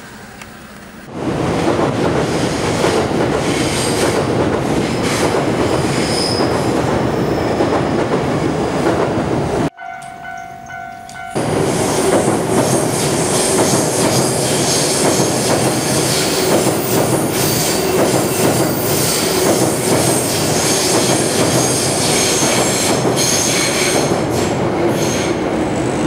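Electric train running over a riveted steel-girder railway bridge: a loud, steady running noise that starts suddenly about a second in. The noise cuts off sharply about ten seconds in, leaving under two seconds of quieter sound with a faint steady tone, and then the loud train noise resumes.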